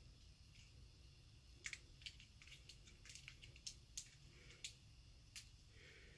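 Near silence with a scattering of faint clicks and taps, starting about a second and a half in, from a lightsaber hilt being handled.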